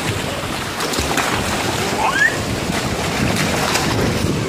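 Water splashing and churning steadily as children thrash and swim, with a few brief high calls from a child's voice.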